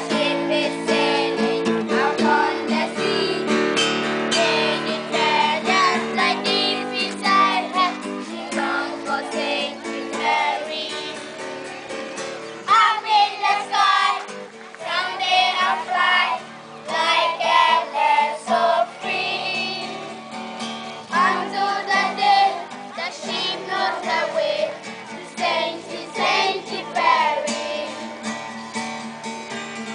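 A group of children singing a song together with an instrument accompanying them. The voices swell and drop back in phrases over steady held notes.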